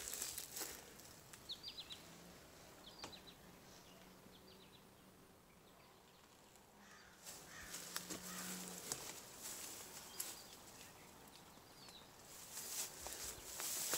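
Quiet rural ambience: small birds chirping faintly in quick groups of three or four short notes. A low steady hum runs from about two seconds in to about nine. Footsteps crunch and rustle on debris, growing louder near the end.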